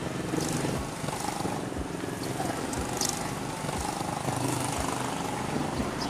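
Steady street traffic noise: vehicles and motorbikes passing on a road.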